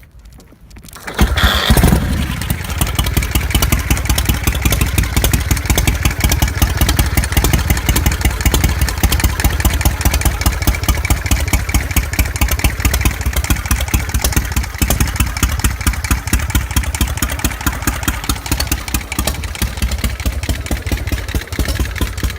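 Road Hopper motorcycle's Shovelhead V-twin kick-started: it catches about a second in and settles into a loud, lumpy, evenly pulsing idle. It is in good tune, starting easily on the kick.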